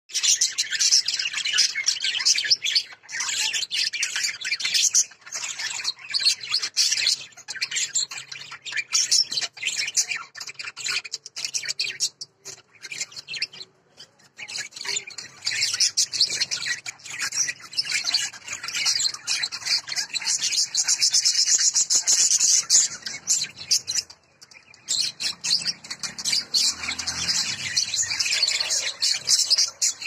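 Budgerigars chattering and warbling continuously in a cage, a dense run of short, high chirps and squawks with a couple of brief pauses.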